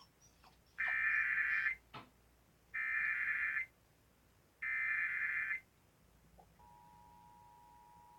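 Emergency Alert System interruption: three loud bursts of about a second each, evenly spaced, of SAME digital header data. About six and a half seconds in, the steady two-tone EAS attention signal begins, announcing a severe thunderstorm warning.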